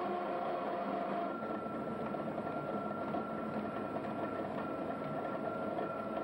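A flywheel-and-belt-driven machine in a blacksmith's workshop running steadily, with a constant high whine over its even mechanical clatter.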